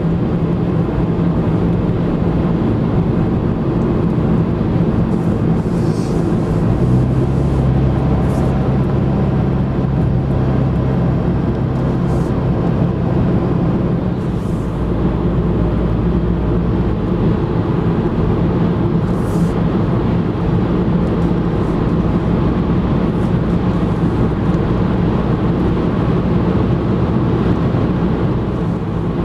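Car driving at road speed, heard from inside the cabin: a steady engine hum with tyre and road noise. A deeper engine drone swells from about seven to fourteen seconds in.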